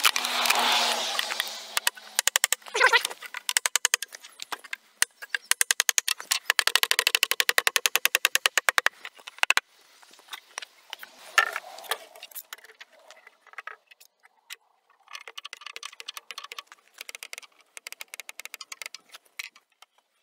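A wooden floorboard is worked into the grooves of a wooden floor frame with a hammer: a scrape, then quick runs of light knocking and ticking, with a few louder knocks.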